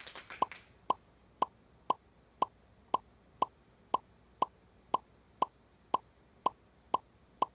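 Game-show sound effect: a short pitched pop repeating at an even pace of about two a second, one for each letter revealed on the quiz board.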